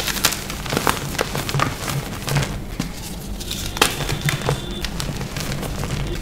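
A block of green-dyed reformed gym chalk snapped apart and crushed by hand: a run of sharp, dry crunches and crackles as it breaks and crumbles into powder. The cracks are thickest near the start and again about four seconds in.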